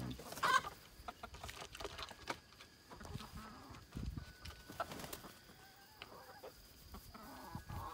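Hens clucking as they forage, with short scattered calls and a louder squawk about half a second in.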